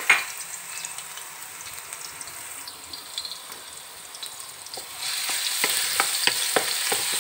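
Minced garlic sizzling in hot oil in a wok. About five seconds in, a wooden spatula starts stirring it, and the sizzle gets louder, with quick scrapes and taps against the pan.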